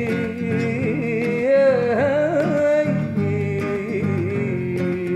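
A man singing long, held, wavering notes in raï style over a strummed nylon-string classical guitar; his voice climbs in pitch around the middle, breaks off briefly, then comes back on a lower held note.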